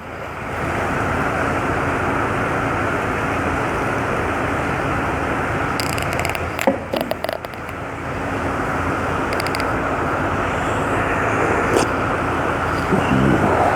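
A vehicle driving on wet roads: a steady wash of road and water noise over a low engine hum. The noise dips briefly about seven seconds in, with a few clicks.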